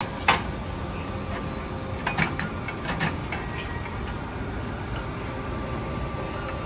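A steel rod clinking against a babbitt melting pot as the molten metal is worked, a few sharp clinks in the first four seconds over a steady low rumble.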